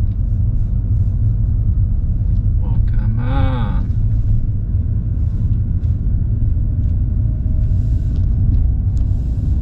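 Steady low rumble of road and engine noise inside a car driving on a snowy road. About three seconds in there is a brief voice sound that rises and falls in pitch.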